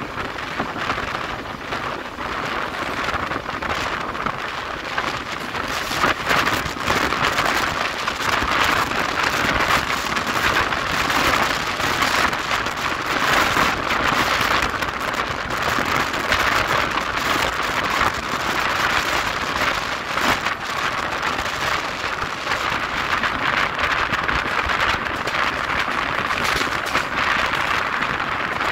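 Steady rushing noise from a fast-moving Indian Railways passenger train, heard from an open coach door or window: wind buffeting the microphone mixed with the wheels running on the rails. Many small irregular clicks and knocks run through it.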